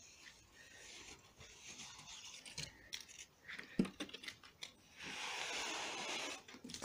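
A bare hand rubbing and sweeping fresh snow on a car's roof and boot, with a few sharp clicks around the middle and a longer, louder sweep about five seconds in.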